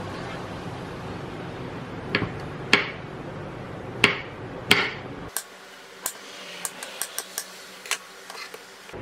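Kitchen knife chopping button mushrooms on a wooden cutting board: four separate knocks in the first half, then a run of quicker, lighter taps. A low background hum stops abruptly about five seconds in.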